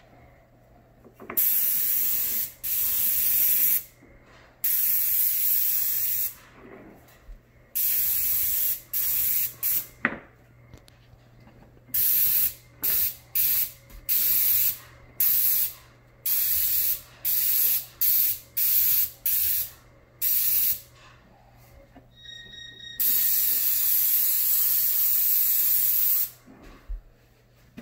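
Airless paint spray gun hissing in on-off bursts as its trigger is pulled and released while coating cabinets: a few long passes of two to three seconds, and a run of short quick bursts in the middle. A faint steady low hum runs underneath.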